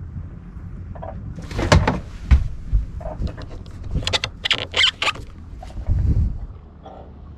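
Handling noise from a rod and a conventional fishing reel: a series of clicks, knocks and short scrapes as the reel and line are worked by hand, over a steady low rumble.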